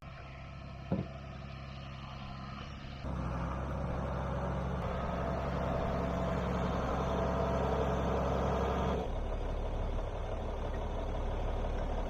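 John Deere tractor engine idling close by. It grows louder about three seconds in and eases back near nine seconds.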